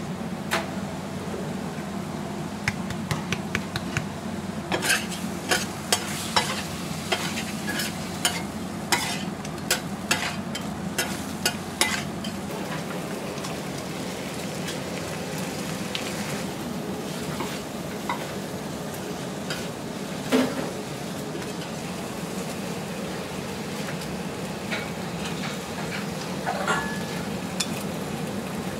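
Fried noodles sizzling on a flat iron griddle while metal tongs toss them, clacking and scraping against the hot plate. The clacks come thick and fast in the first half, then thin out to occasional knocks as the sauce goes in and the noodles are gathered up.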